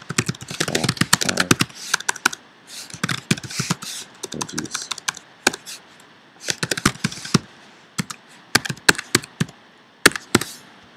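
Typing on a computer keyboard: quick runs of key clicks with short pauses, thinning out in the second half.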